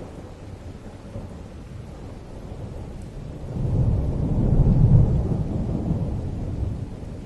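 Thunderstorm: steady rain, with a low rumble of thunder swelling up about halfway through and rolling away near the end.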